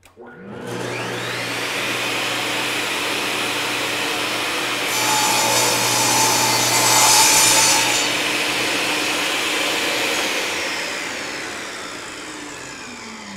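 Portable table saw starting up with a rising whine, running steadily, then crosscutting a board from about five to eight seconds in, the loudest part. The motor is switched off and the blade winds down with a falling whine near the end.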